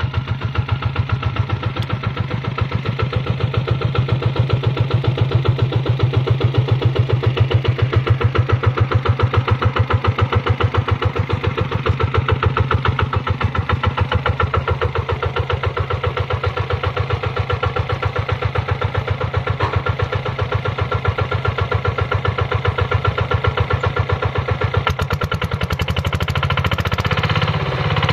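Kubota two-wheel hand tractor's single-cylinder diesel engine running steadily while it pulls through paddy mud, with a rapid, even chugging beat.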